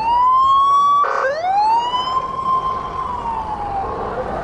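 Police siren wailing: the pitch rises and holds, breaks off about a second in, then rises again and holds, sinking slightly near the end.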